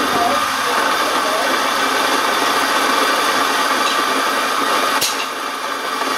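Cunill Tranquilo coffee grinder's motor running, grinding coffee beans into an espresso portafilter basket: a steady, loud grinding noise, with one sharp click about five seconds in.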